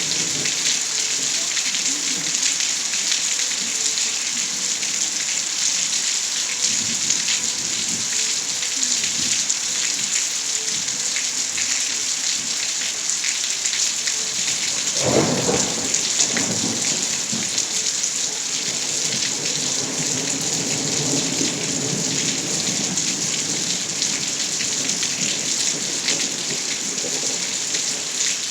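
Steady rain falling, with a roll of thunder that breaks in about halfway through and rumbles on for several seconds.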